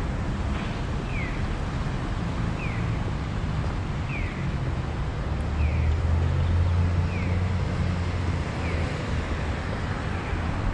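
Electronic chirps of a pedestrian crossing's audible signal, a short falling tone repeating evenly about every second and a half, over street traffic and wind on the microphone. A vehicle passes with a low rumble about halfway through, the loudest sound here.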